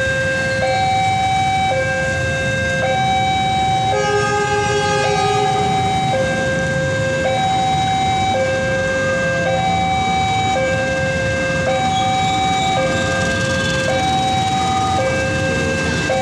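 Railway level-crossing warning alarm sounding a two-tone high-low signal, each tone held about a second, over and over, warning that a train is approaching. Road traffic rumbles underneath, and another short tone joins briefly about four seconds in.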